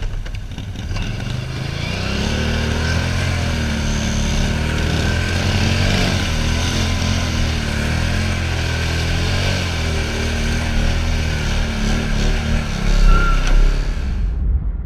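Can-Am Outlander XMR ATV's V-twin engine running as it is ridden through mud, its pitch rising and falling with the throttle. The sound fades out near the end.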